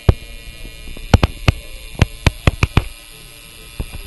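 A tattoo machine buzzing steadily, under a run of about ten sharp clicks and knocks, most of them between one and three seconds in. The clicks are the loudest sounds.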